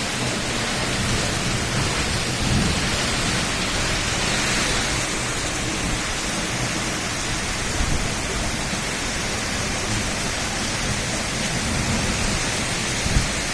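Heavy rain falling steadily, with wind buffeting the microphone in low rumbles.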